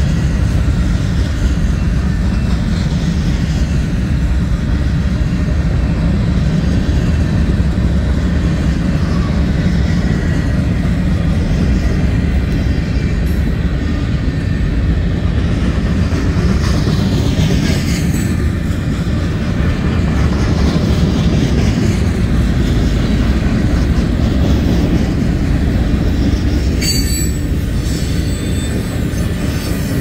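Freight cars of a CSX train rolling past at close range: a steady rumble of steel wheels on the rails, with faint wheel squeal sliding up and down in pitch now and then.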